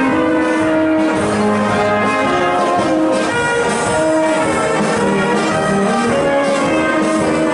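Brass band playing a folk dance tune, with a steady stream of held notes.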